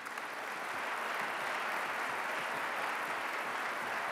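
Large audience applauding, the clapping swelling over the first second and then holding steady.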